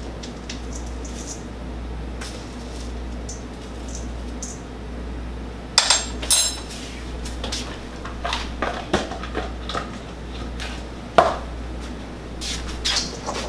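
A metal spoon scraping and clinking against a stainless steel mixing bowl and cup while rolled oats are spooned in: scattered light taps, a pair of sharp ringing clinks about six seconds in and another loud clink about eleven seconds in, over a steady low hum.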